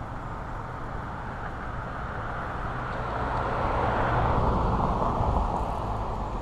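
A car driving past, its road noise swelling to a peak about four seconds in and then fading away.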